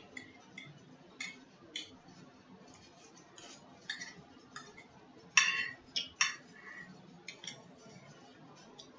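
Metal fork clinking and scraping on a plate while food is cut and picked up: a scatter of light clicks and taps, the loudest two about five and a half and six seconds in.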